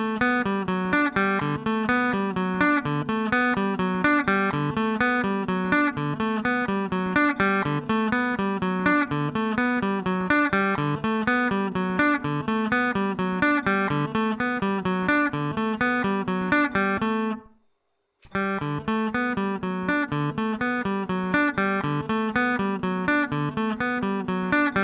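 Squier Stratocaster electric guitar picking a repeating single-note riff in alternating groups of six and seven notes over a ringing open string. The riff stops briefly about two-thirds of the way through, then starts again.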